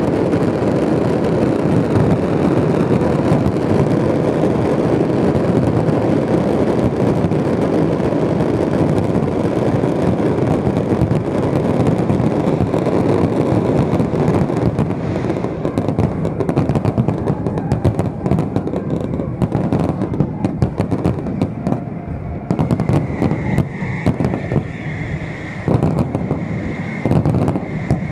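Fireworks display at full barrage: a dense, continuous roar of bursting shells and crackle, which in the second half breaks up into many separate sharp bangs.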